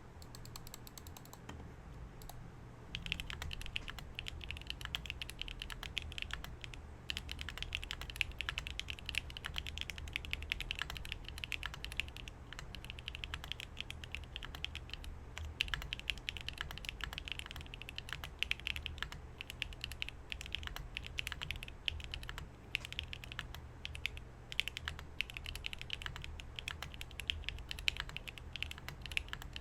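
Neo 80 mechanical keyboard with Kailh BCP switches, GMK Mictlan keycaps and an aluminium plate being typed on: a fast, continuous clatter of keystrokes that starts in earnest about three seconds in, after a few faint clicks.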